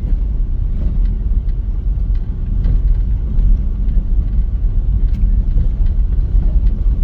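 A car driving slowly over a paver-stone street, heard from inside the cabin: a steady low rumble of engine and tyres, with a few faint ticks.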